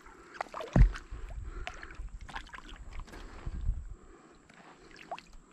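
Small splashes, drips and clicks of water as a just-landed bass is held and unhooked by hand at the surface, with a thump about a second in followed by a low rumble for about three seconds.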